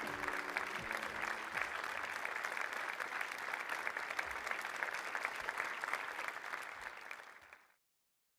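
Theatre audience applauding: dense, steady clapping that fades and cuts off shortly before the end.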